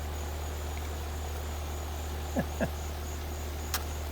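Steady low electrical hum from a Carrier heat pump's outdoor unit, the 'death buzz' that the technician puts down to a failed run capacitor, with crickets chirping. Two short chirps sound about two and a half seconds in, and a sharp click comes near the end.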